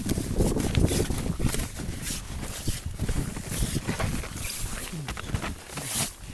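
Footsteps crunching irregularly through snow, over the low rumble of strong wind buffeting the microphone in a blizzard.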